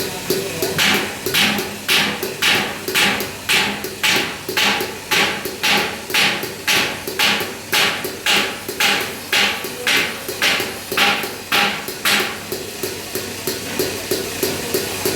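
Hammer striking metal strip, even blows about twice a second. Near the end they give way to softer, quicker taps.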